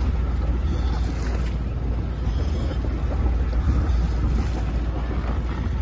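Boat engine running with a steady low rumble, with wind buffeting the microphone.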